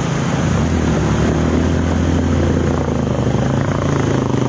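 Motorcycle engine running steadily as the bike ploughs through shallow flood water, with the hiss and splash of water spray under a low pulsing engine hum.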